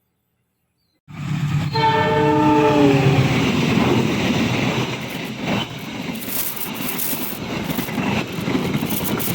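Indonesian train passing close by: a loud rumble starts suddenly about a second in, the locomotive's horn sounds for about a second with its pitch sagging slightly, then the cars rumble on with repeated clicks of wheels over rail joints.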